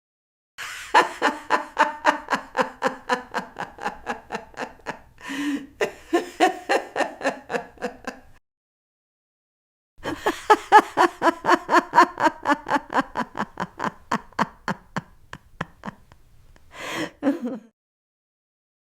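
A person laughing in rapid, even "ha-ha-ha" pulses, with a sharp intake of breath partway through. After a short silence a second long run of laughter follows, and a brief breathy sound comes near the end.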